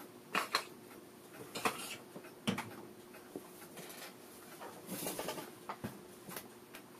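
Scattered light clicks, taps and rustles of hands moving tools and small parts about on a workbench, a few more close together about five seconds in, over a faint steady hum.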